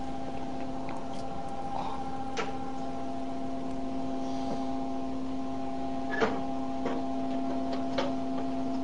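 Steady electrical hum with a few light clicks scattered through it, the clearest about six seconds in.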